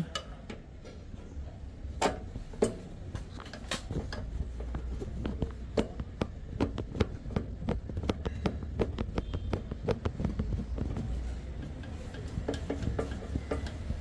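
A mounting screw being driven into the metal flange of a microwave oven's new magnetron: a run of small, irregular metallic clicks and taps from the screwdriver and screw against the sheet-metal chassis, over a low steady hum.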